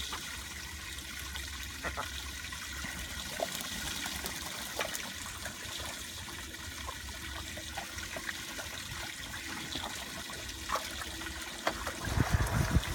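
Water jetting from a garden hose and running across a flooded wooden deck, a steady trickling hiss, with ducks splashing and dabbling in the shallow water. A few low thumps come near the end.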